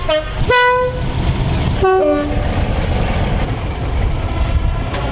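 Two-tone train horn sounded in short blasts, two notes at different pitches, in two pairs within the first two and a half seconds, over steady low running noise from the train.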